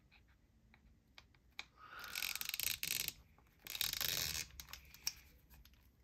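Small hard objects being handled at close range: scattered light clicks and two short stretches of scraping, about two seconds and about four seconds in.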